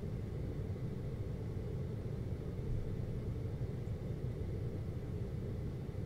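GoldStar window air conditioner running with a steady low hum and a faint thin high tone above it.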